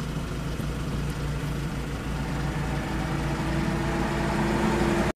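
Engine of a heavy military vehicle, such as a truck or tank, running steadily with a low hum. It grows slightly louder in the second half, with a higher engine tone coming up.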